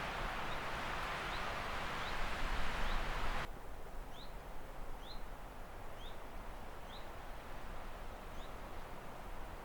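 A small bird repeating a short, high, upward-flicking chirp about once a second, over a rushing hiss that cuts off abruptly about three and a half seconds in.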